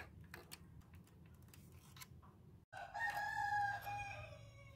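A few light clicks of a screwdriver on metal parts, then a rooster crowing for about two seconds, the call dropping in pitch at the end.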